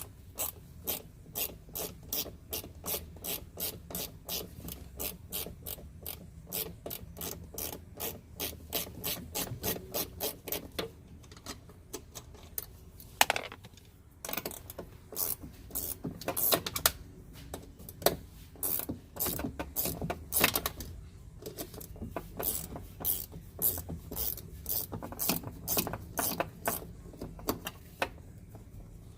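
Ratchet wrench with a 10 mm socket clicking at about four clicks a second as the bolt and nuts holding the door check are backed out, pausing briefly partway through.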